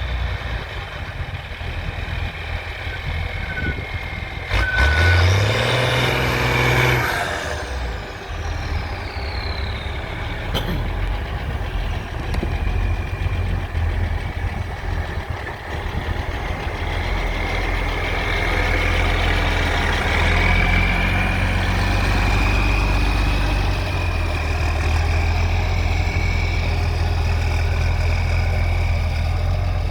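Competition trial truck's diesel engine working hard over the course, revving up about five seconds in, with a high whistle falling in pitch just after and a sharp click near the middle. It then runs steadily and more loudly through the second half.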